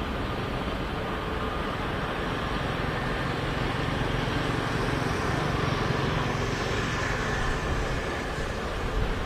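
Jet engine noise from a Boeing 737 rolling away down the runway: a steady rumble with a faint whine over it, swelling slightly in the middle.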